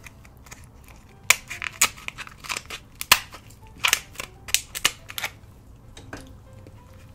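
King crab leg shell being cracked open: a quick series of about a dozen sharp cracks and snaps, starting about a second in and stopping near the end.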